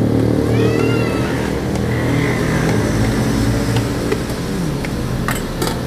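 A motor vehicle engine running steadily, its pitch dipping briefly a little after four seconds in. A short high squeak comes about half a second in, and a couple of sharp knocks near the end.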